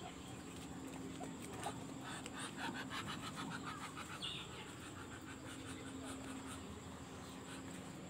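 Faint poultry sounds from the pen: a quick run of short clucks about two seconds in and a brief higher call near the middle, over a steady low hum.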